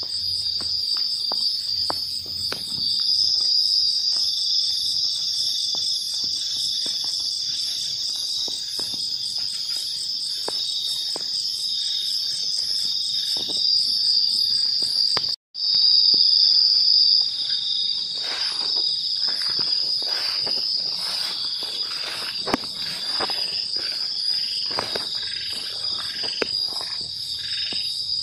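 Nighttime chorus of tropical crickets and other insects: a steady shrill trilling with a faster pulsing trill above it. Scattered crackles and rustles run through it, more of them in the second half. Everything drops out for an instant about halfway.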